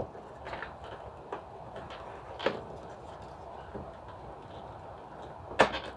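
Hard plastic parts of a large toy spaceship being handled and fitted together: a faint rustle with scattered small clicks, the sharpest two close together near the end.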